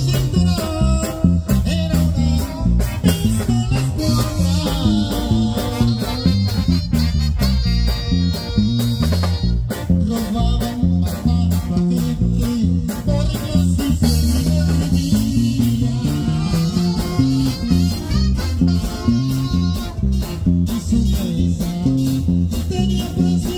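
Live band playing an instrumental corrido passage: keyboard, brass and guitar over a steady, driving bass beat.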